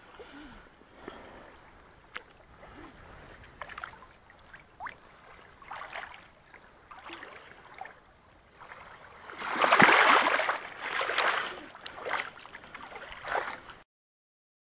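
Shallow lake water splashing and sloshing around hands releasing a wild rainbow trout, with scattered small splashes at first and the loudest splashing about two-thirds through. The sound stops about a second before the end.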